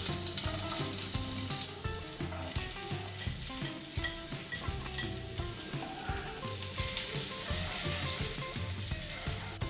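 Food sizzling and frying in a hot pan as it is stirred, with light scrapes and clicks from the stirring. A music track plays underneath.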